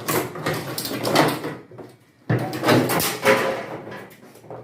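A part of a Samsung front-loading washing machine being worked loose and pulled off: scraping and knocking of plastic and metal panels, with a sharp knock a little over two seconds in.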